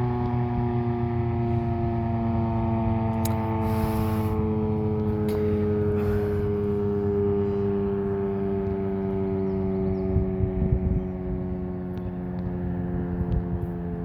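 Federal Signal Model 7 electromechanical siren sounding its alert tone, a chord of several steady tones that slides slowly down in pitch as the siren starts to wind down.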